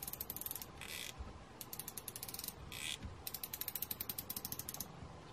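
Small bit ratchet clicking in three quick runs of about ten clicks a second, with short rasps between the runs. It is turning the screw of a homemade wire hose clamp tool to tension stainless steel wire around a hose.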